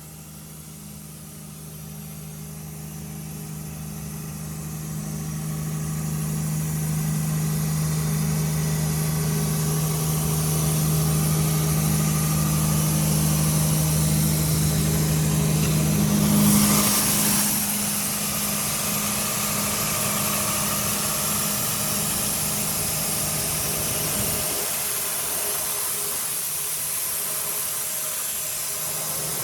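The John Deere six-cylinder diesel engine of an Ingersoll Rand 7/170 N mobile compressor running steadily, growing louder over the first several seconds. About halfway through, a short loud burst of hiss comes, and the engine note drops after it.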